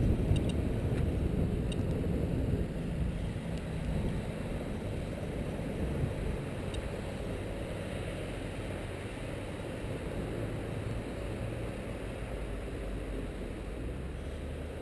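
A steady low rumble of background or handling noise, with a bump right at the start and a handful of faint, irregular clicks from a SOEKS Geiger counter registering background radiation.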